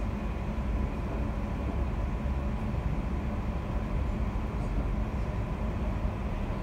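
London Overground Class 710 electric multiple unit running at speed, heard inside the passenger saloon: a steady low rumble of the wheels on the track, with a faint steady high tone over it.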